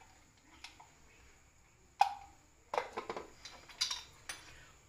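Light kitchen utensil clatter while seasoning a pan: a single sharp clink with a short ring about two seconds in, then a run of soft taps and scrapes.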